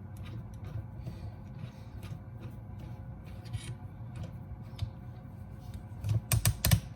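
A refrigerator being rocked and pulled out from its space: faint rubbing and handling over a low steady hum, then a quick series of loud knocks near the end as the heavy fridge bumps and shifts.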